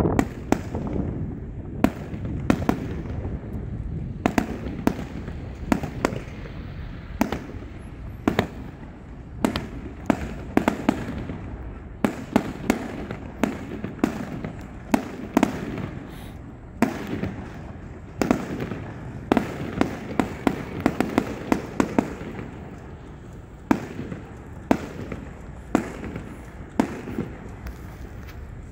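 Aerial fireworks bursting overhead: an irregular string of sharp bangs, often one or two a second, over a steady low rumble.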